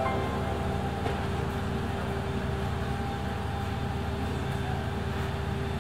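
Street ambience: a steady low rumble of traffic, with a faint hum held throughout.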